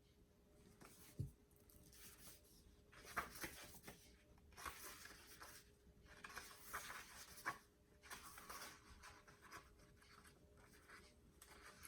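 Faint rustling of a hardcover book being handled and its pages turned, in short scattered bursts, with a soft knock about a second in.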